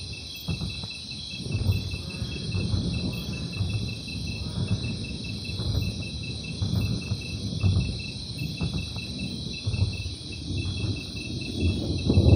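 Sound-effect footsteps of a Tyrannosaurus rex: heavy, deep thuds about once a second, louder near the end, over a steady ambience of chirping insects.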